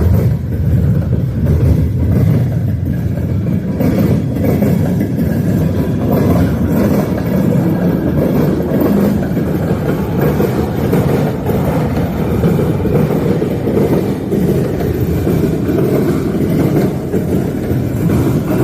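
Freight train rolling past close by, a steady loud rumble.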